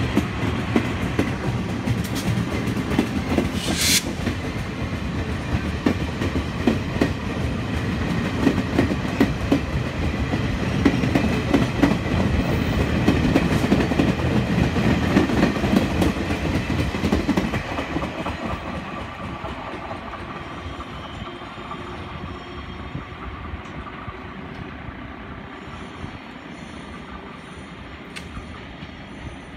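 Taiwan Railways Chu-Kuang express, an electric locomotive hauling a rake of coaches, running past with a dense clatter of wheels over the rail joints, then fading away as the train draws off. A brief hiss sounds about four seconds in.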